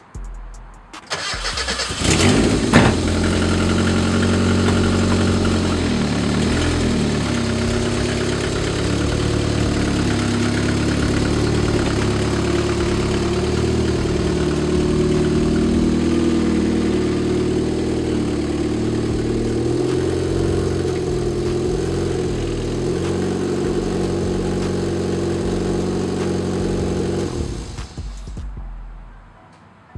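Turbocharged 1.6-litre Mazda Miata engine starting about two seconds in, then idling steadily, and shut off near the end.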